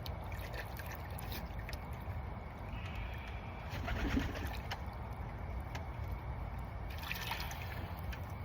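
Tippler pigeons cooing, most clearly about four seconds in, over a steady background noise with scattered small clicks.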